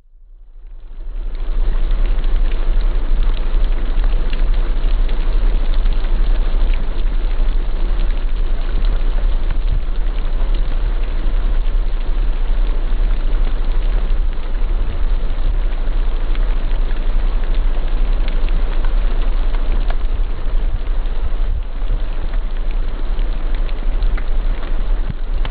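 Steady rain falling, with a constant low rumble beneath the hiss; it fades in over the first second or two.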